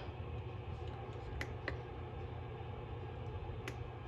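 Steady low hum of room tone with a few faint small clicks, three of them, from handling at a desk.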